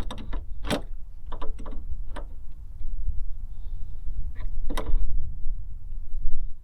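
An adjustable wrench tightening the nut of a cam lock on a metal-skinned RV baggage door: scattered sharp clicks and knocks, one loud knock under a second in and another near the end, as the lock's teeth are drawn to bite into the door. A steady low rumble runs underneath.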